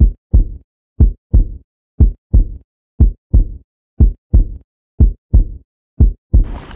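Heartbeat sound effect: a steady lub-dub of paired low thumps, one pair a second, seven times. A rushing noise fades in just before the end.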